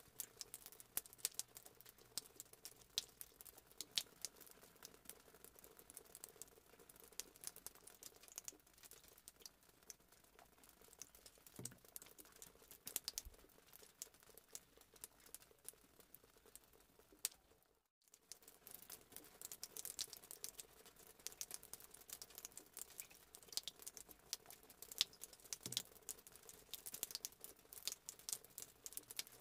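Egg-coated potato fritters frying in hot oil in a wok: a faint, dense crackle of small pops and spits. The crackle drops out briefly a little past the middle.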